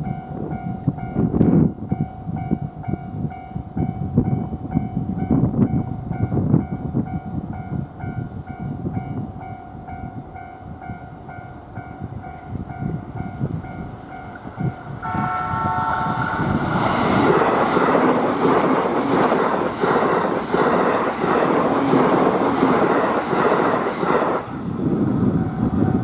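Level crossing alarm ringing steadily over a low rumbling noise, then a short horn blast from a JR East E531-series electric train about fifteen seconds in. The train then passes over the crossing, loud for about eight seconds before it falls away.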